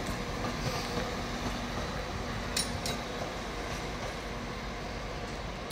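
Northern Class 195 diesel multiple unit pulling out of the station at a distance: a low steady engine note that fades after about two seconds, under a steady rumble of station noise. Two short sharp clicks sound about two and a half and three seconds in.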